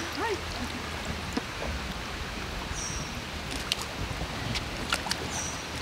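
Outdoor poolside ambience: a steady low wind rumble on the microphone and gently moving pool water, with a few sharp clicks and two or three short, high chirps that drop in pitch.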